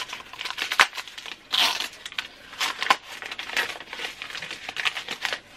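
Wrapping paper being torn and crumpled by hand as a small wrapped package is unwrapped, a dense run of rustling with sharp crackles.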